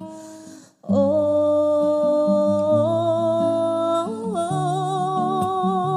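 A woman's voice humming one long wordless note with vibrato in a ballad song cover, starting about a second in after a brief pause and stepping up in pitch twice, over steady low accompaniment notes.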